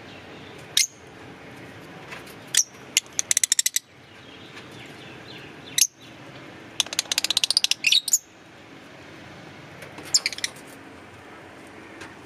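Fischer's lovebirds giving sharp, high-pitched chirps: single calls a few seconds apart, with two fast runs of rapid chirps, about three seconds in and again around seven seconds in.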